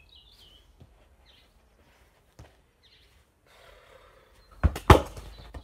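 A football struck with the foot during a flick-up: two sharp thuds a quarter-second apart near the end, after a few faint light taps.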